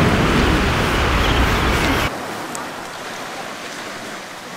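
Loud, steady rushing of wind and surf on the beach, which drops abruptly to a quieter wash of surf about two seconds in.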